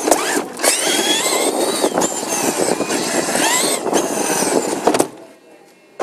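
Traxxas Summit RC truck driving hard: the electric motor and gears whine up and down with the throttle over constant rattling and knocking from the rough ground, then cut off suddenly about five seconds in.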